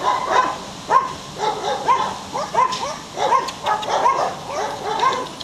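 Belgian Shepherd puppy yipping and whining: a quick run of short, high calls that rise and fall, several a second.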